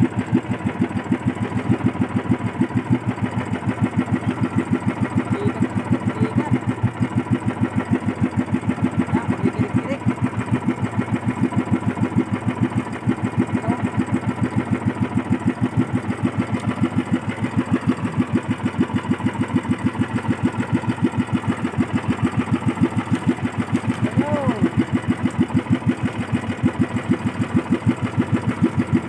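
Small engine of a motorized outrigger boat (bangka) running steadily at cruising speed, with a rapid, even pulse.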